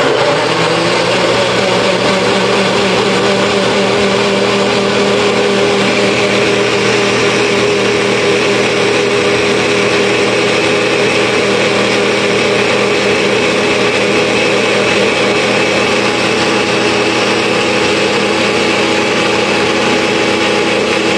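Nutri-Blast personal blender motor switching on and running steadily as its cup is pressed down, its blades chopping banana and fruit into a smoothie.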